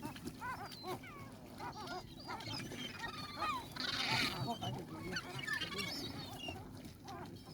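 A flock of seagulls calling, many short cries overlapping and bending up and down in pitch.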